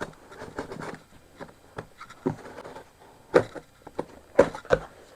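Laptop box and its packaging being handled: scattered rubbing and light knocks, with the sharpest knocks about three and a half and four and a half seconds in.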